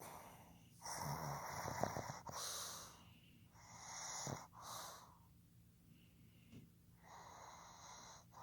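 Pug snoring loudly: three rasping, wheezy breaths in and out, each a longer draw followed by a shorter one. The first breath is the loudest and carries a fluttering rattle, and there is a pause of about two seconds before the last.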